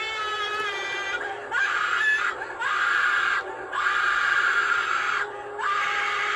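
Spirit Halloween Broken Spine Girl animatronic playing its recorded screaming through its built-in speaker while running: long shrill wailing shrieks broken by four short pauses.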